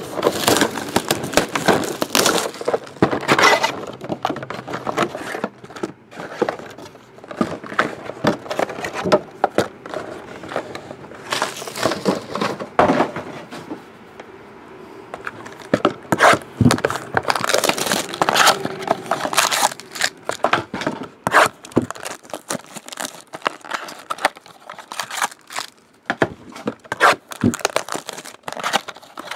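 Plastic wrapping on trading-card boxes and packs being torn and crinkled, with cardboard boxes handled and knocked on the table: a dense run of crackling, tearing and sharp knocks, easing off briefly about halfway through.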